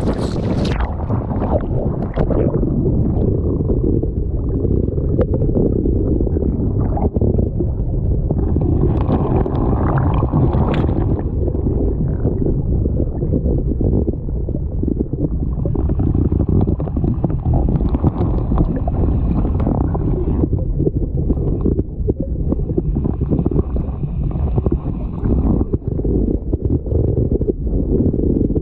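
Water sloshing and gurgling around a camera held under the water, heard muffled with a deep, continuous rumble. A brief burst of wind and splash noise about a second long at the start, before the camera goes under.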